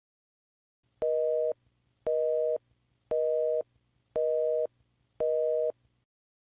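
Telephone busy signal from the Meizu Flyme AiOS phone's call sounds: five steady, identical two-note beeps, each about half a second long, one a second, starting about a second in. It signals that the line is busy or the call cannot go through.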